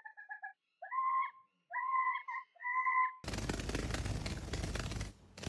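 A parrot imitating a cat, giving four short meow-like calls in the first three seconds, the first one stuttering. They are followed by a loud rushing noise that lasts about two seconds.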